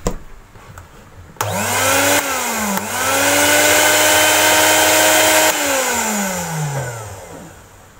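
Miyako blender's electric motor, running with no jar fitted. It spins up with a rising whine about a second and a half in, drops briefly and picks up again, runs steadily for a few seconds, then is switched off and winds down with a falling whine.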